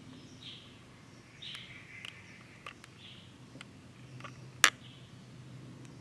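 Faint short chirping calls, a few in the first half, over a low steady hum, with scattered light clicks and one sharp click a little past the middle.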